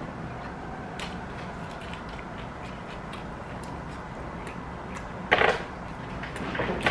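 Quiet eating at a table over steady room hiss: scattered small clicks and taps of plastic forks and chewing on chicken wings. A brief louder noise comes about five seconds in.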